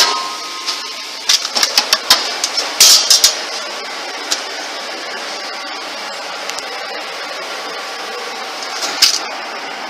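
Steady machine noise with a quick cluster of sharp clicks and knocks from about one to three and a half seconds in, and another short clatter near the end.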